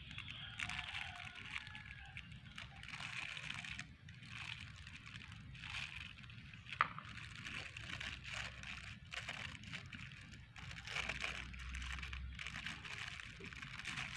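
Thin plastic food-handling gloves crinkling and rustling in irregular little crackles while hands split and stuff a soft rice cake, with one sharp click about seven seconds in.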